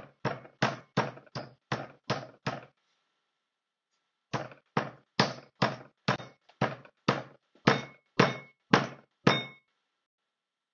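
Thin-sliced raw chicken breast being pounded flat: a steady run of thuds, about three a second, with a pause of about a second and a half a few seconds in.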